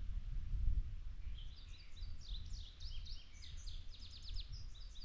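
Songbirds singing: a run of quick high chirps and rapid trills starting about a second and a half in, over a steady low rumble.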